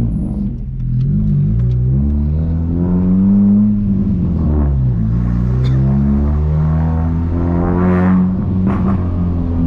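1999 VW Gol G2's 1.0-litre 8-valve four-cylinder engine through a straight-through exhaust with a 4-inch HKS muffler, accelerating hard. Its pitch climbs, falls briefly about four seconds in, climbs again and falls near the end.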